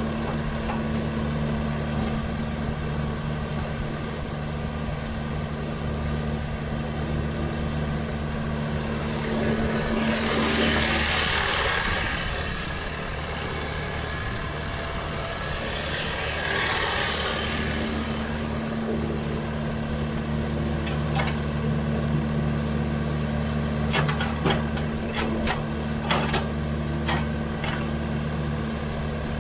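Sany excavator's diesel engine running steadily, with two bursts of hiss about ten and sixteen seconds in and a run of sharp knocks in the last several seconds.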